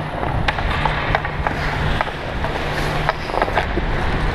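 Ice skate blades scraping and carving on the ice close by, with many sharp clicks of hockey sticks on puck and ice over a low steady hum.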